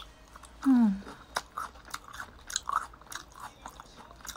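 A person chewing grilled meat close to the microphone: soft, irregular mouth clicks and crunches. A short hummed 'mm' that falls in pitch comes a little under a second in and is the loudest sound.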